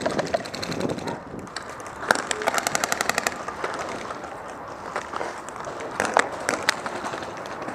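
Airsoft guns firing: scattered shots, with a rapid full-auto burst of about a dozen shots lasting about a second, starting about two seconds in, then a few single shots near the end.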